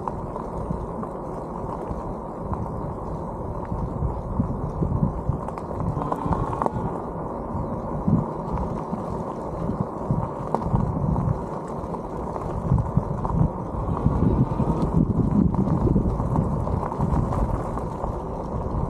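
Mobility scooter rolling over a gravel road: a steady low rumble from the tyres and ride, with irregular bumps and jolts.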